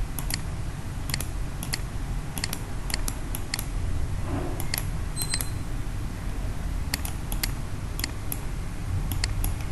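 Computer mouse clicking repeatedly while selecting items on screen: sharp clicks, often in quick pairs, a few a second, over a low steady hum.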